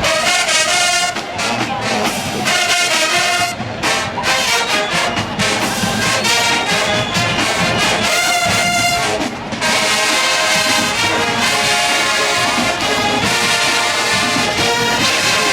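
Marching band brass section playing loudly, trombones and trumpets leading, in phrases with brief breaks.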